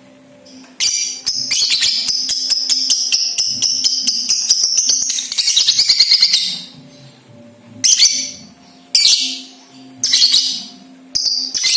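Lovebird giving its 'ngekek' chatter: a long, rapid high-pitched trill of about six seconds, then short bursts of chatter roughly once a second.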